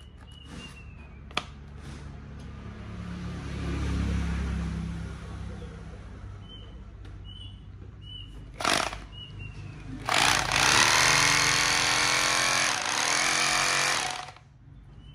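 Corded 100 V, 620 W three-mode rotary hammer drill run free in the air: a short burst about nine seconds in, then a run of about four seconds whose pitch rises and dips as the variable-speed trigger is worked. Before that, a low rumble swells and fades.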